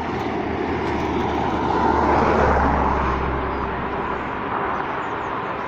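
Refinery flare stack burning with steam injected into the flame: a continuous jet-like roar, like a jet taking off, that swells about two seconds in and then eases slightly.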